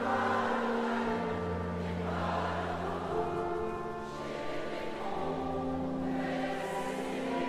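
Slow concert music with choir-like voices holding long chords that change every second or two.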